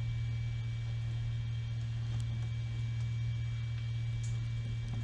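Steady low hum with a few faint light clicks over it.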